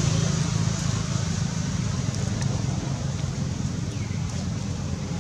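Steady low rumble of outdoor background noise, with a few faint ticks and a short high chirp about four seconds in.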